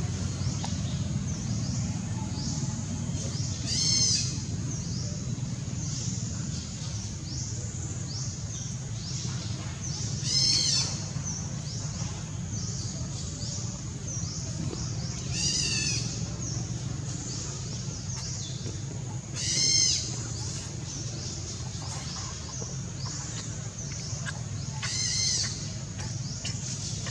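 A baby monkey's high-pitched cries, five short calls about five seconds apart, over a steady low rumble with faint chirping throughout.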